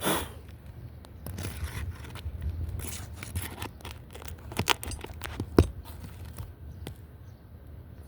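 Scraping and tearing noises of work on asphalt roof shingles, with two sharp clicks a little past halfway.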